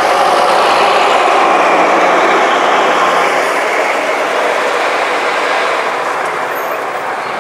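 Bristol VR double-decker bus driving past close by and pulling away, its engine running loud and steady, then fading as it moves off.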